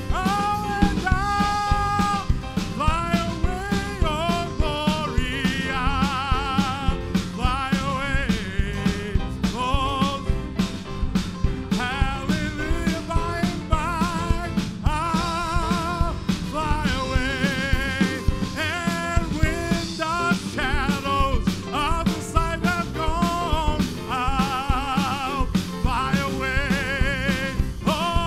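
Lively church band music with a fast, steady drum beat and a lead melody with strong vibrato.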